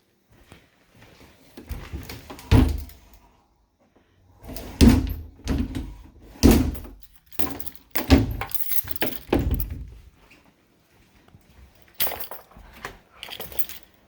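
Closet doors being handled: a string of separate thumps and rattles, about half a dozen over the stretch, with a pause in the middle.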